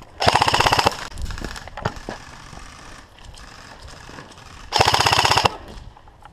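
Airsoft gun firing two short full-auto bursts of rapid, evenly spaced shots, each under a second long, about four seconds apart.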